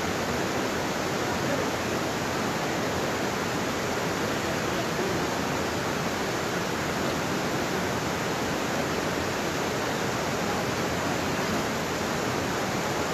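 Steady rush of water pouring over a low waterfall and running through rocky rapids.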